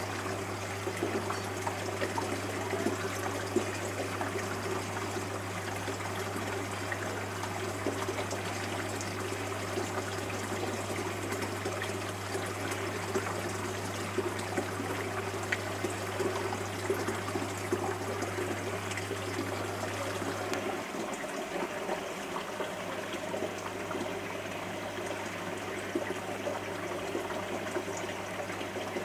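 Aquarium water trickling steadily, over a low steady hum that drops away about twenty seconds in and comes back fainter.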